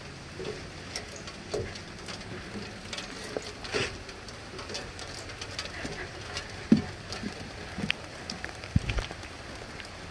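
Footsteps going down a metal spiral staircase and onto wet wooden platform boards: scattered light knocks and taps, with two heavier thumps in the second half, over a faint steady patter of light rain.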